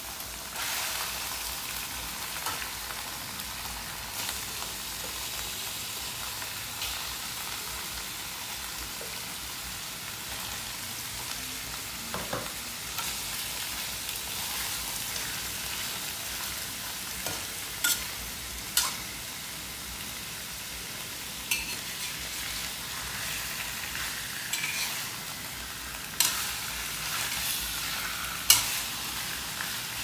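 Pieces of tilapia sizzling as they fry in curry paste in a stainless steel wok; the sizzle gets louder about half a second in as the fish goes into the hot pan. A spatula scrapes and knocks against the wok now and then as the fish is stirred, the sharpest knock near the end.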